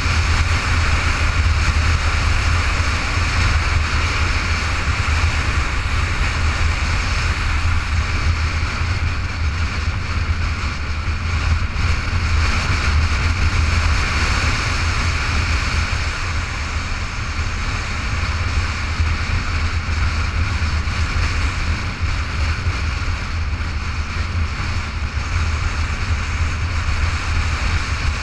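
Steady rush of wind on the microphone of a camera on a motorcycle riding at speed, with the bike's engine and road noise running evenly underneath.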